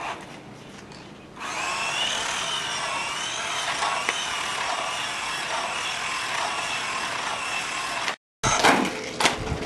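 Electric motor and plastic gear drive of a GP Toys Luctan S912 1/12-scale RC car whining as it drives, the pitch rising and falling with the throttle. It starts about a second and a half in and cuts off suddenly near the end.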